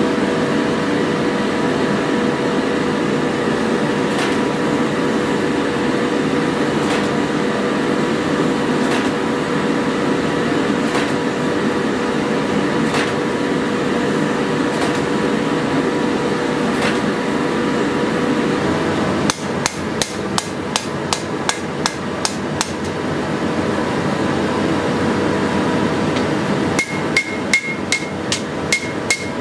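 Hammer forging a pattern-welded steel sword blade on an anvil: single blows every couple of seconds at first, then a quick run of about a dozen blows a little past halfway and another ringing run near the end. A steady forge roar sounds underneath.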